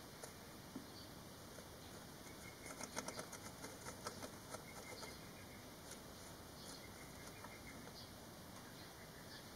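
Five-day-old barn swallow nestlings stirring in the nest: a short run of rapid faint squeaks and scratchy taps about two to five seconds in.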